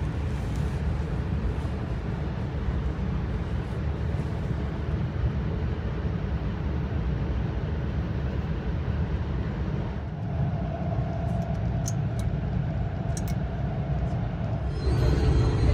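Steady low running rumble of an E4 series Max Shinkansen heard from inside the passenger cabin, with a faint hum joining about ten seconds in.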